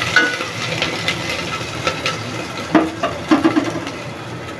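Chopped ginger and cumin seeds sizzling in hot mustard oil in a steel pot, with a metal ladle stirring and clinking against the pot, a few louder clinks about three seconds in.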